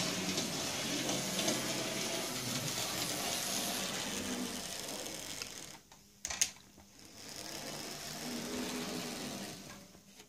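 Motor of an N gauge model locomotive whirring as it runs along the track. The whir drops away about six seconds in, a single sharp click sounds, then the whir picks up again and fades out near the end.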